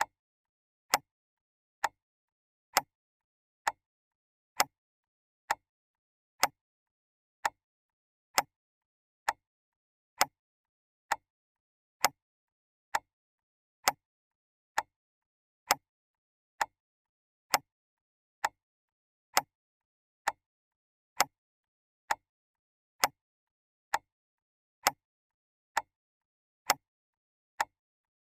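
Clock ticking steadily, crisp single ticks about once a second, evenly spaced, with silence between them.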